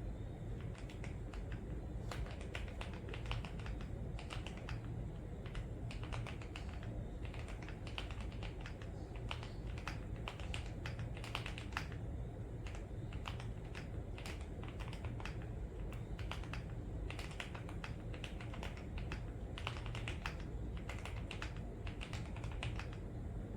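Typing on a mechanical keyboard fitted with AKKO Clear Black ASA-profile keycaps: a steady, irregular run of key clacks, several per second.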